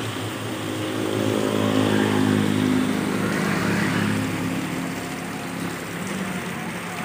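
A motor vehicle passing on a wet road, its engine note swelling about a second in, loudest around two to three seconds, then fading away, over a steady hiss of rain.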